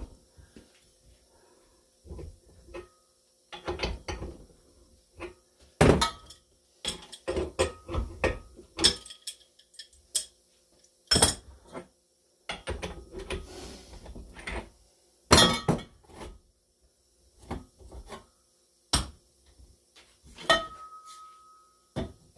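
Irregular metallic clanks, knocks and clinks as steel exhaust pipe and hand tools are handled and knocked together on a workbench. One clink about two thirds of the way in is the loudest, and near the end a strike leaves a short ringing tone.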